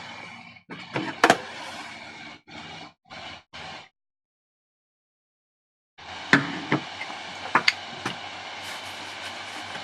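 A few sharp knocks and clicks over a steady background hiss; the sound cuts out entirely for about two seconds in the middle.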